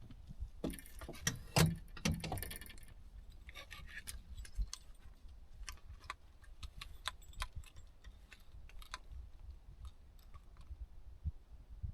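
Jingling, rustling clinks for about two seconds, then scattered light clicks.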